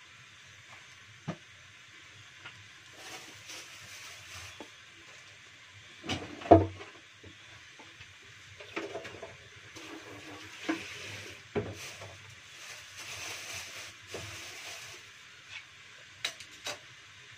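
Things being handled at a kitchen sink: scattered knocks and clatters, the loudest about six and a half seconds in, with rustling of a plastic bag between them.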